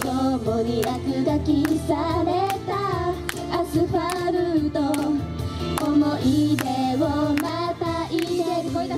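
A female idol group singing a J-pop song live over a backing track with a steady drum beat.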